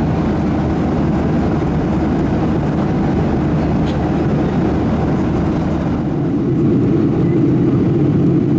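Steady cabin noise inside a Boeing 737-800 airliner in flight: the low roar of its CFM56 engines and the airflow over the fuselage. It gets a little louder about six and a half seconds in.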